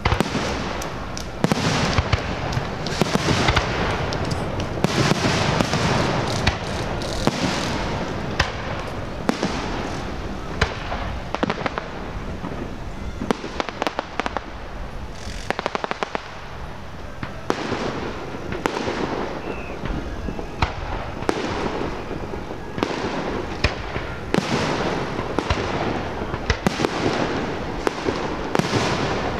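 Fireworks display: aerial shells bursting bang after bang, with crackling between the reports.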